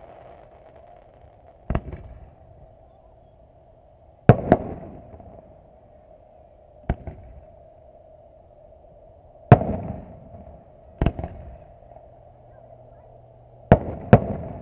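Aerial firework shells bursting: about eight sharp booms, some in quick pairs, each followed by a rolling echo. A steady hum runs underneath.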